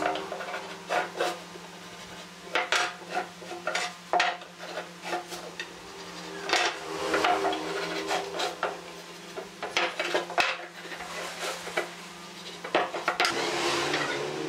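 Wooden marking gauge scratching scribe lines along pine boards, with sharp clicks and knocks as the boards and the gauge are handled on a wooden workbench. Longer scraping strokes come about halfway through and again near the end.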